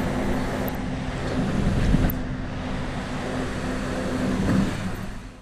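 Steady low hum of a ship's machinery, with wind buffeting the microphone; the sound cuts off suddenly at the very end.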